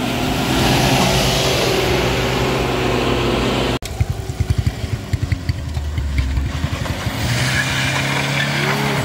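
A large bus's diesel engine running as the bus passes close. A little over a third of the way in the sound cuts off abruptly to a motorcycle engine's rapid pulsing, and near the end a van's engine pulls steadily up the slope.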